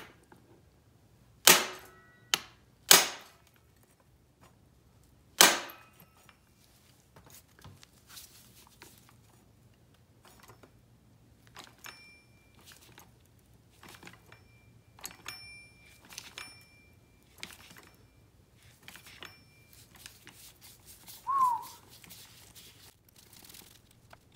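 Bolts on a Honda ATC 200X engine cracking loose under a wrench: four loud, sharp cracks in the first few seconds, followed by lighter metallic clicks and clinks of tools and parts, and a short squeak about three-quarters of the way through.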